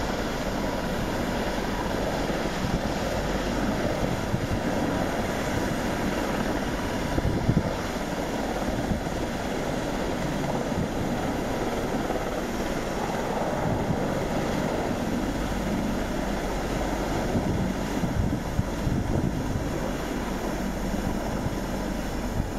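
Large heavy-lift helicopter's rotors and turbines running as it hovers low and moves off through blown snow, a steady rush of noise, with wind buffeting the microphone.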